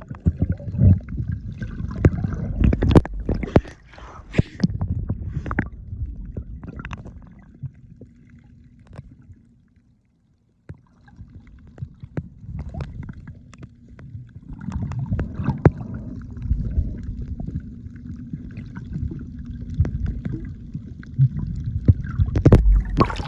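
Muffled water sloshing and gurgling with many sharp clicks and knocks, picked up by a phone filming underwater. The sound fades and drops out entirely for about a second near the middle, then builds again.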